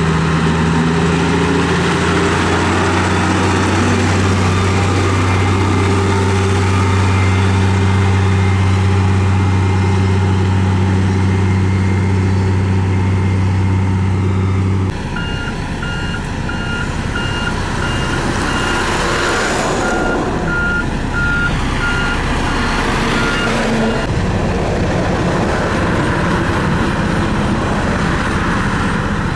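Heavy construction vehicle engines running loud and steady at an asphalt paving site. About halfway the sound changes abruptly and a reversing alarm beeps over and over for about eight seconds, with a couple of hissing rushes in between.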